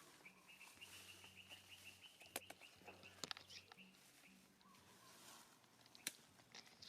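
Faint, thin high-pitched animal call held for about two seconds, followed by a few sharp clicks.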